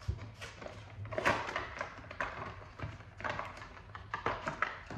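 Paperboard ink-cartridge box being opened by hand: an irregular run of short scrapes, crinkles and light taps as the flaps are pulled apart.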